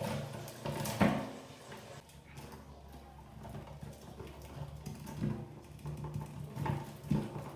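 Mice scrabbling and pattering over a cardboard lid and the PVC pipes of a bucket trap, with a sharp knock about a second in and a few smaller knocks later, over a low steady hum.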